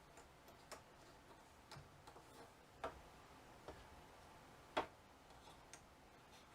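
Near silence with a few faint, irregular clicks and taps, roughly one a second, the sharpest about five seconds in.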